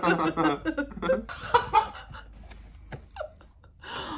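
A man and a woman laughing together in bursts, dying down after about two seconds.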